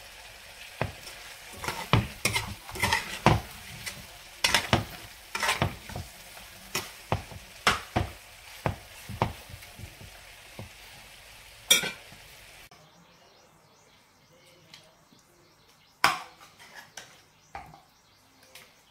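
A metal spoon scrapes and knocks against a frying pan as chicken pieces in a thick masala are stirred over a sizzling hiss, with many sharp clicks. About two-thirds of the way through, the sizzle stops abruptly; a few clinks of the spoon on the pan follow as the chicken is served.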